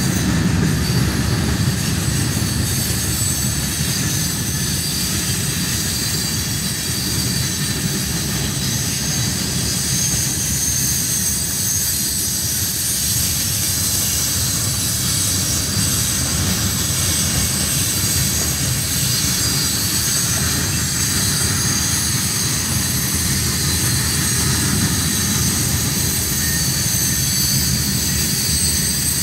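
Loaded Herzog ballast hopper cars rolling past on the rails: a steady rumble of wheels on track, with thin high-pitched squealing running over it.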